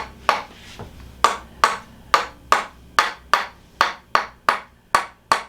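A hand-held hammer tapping on the hip joint in a steady rhythm, about two and a half sharp knocks a second, loosening the joint before an adjustment.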